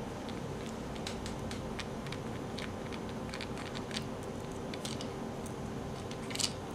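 Faint, scattered small clicks and ticks of a small Phillips screwdriver turning a tiny screw out of a micro R/C helicopter's plastic landing-skid frame, over a steady low hum. A sharper cluster of clicks comes near the end.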